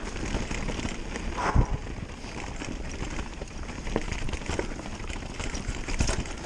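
Specialized Turbo Levo mountain bike rolling down a rocky, leaf-strewn dirt trail: tyre noise over stones and leaves with the bike rattling and clattering. A hard knock about one and a half seconds in and another near the end as the wheels hit rocks.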